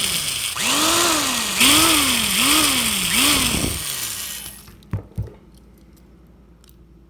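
Corded electric drill boring into the rivet of a die-cast toy car's base, the motor speeding up and slowing in about five pulses as the trigger is worked, then winding down about four seconds in. Two short clicks follow.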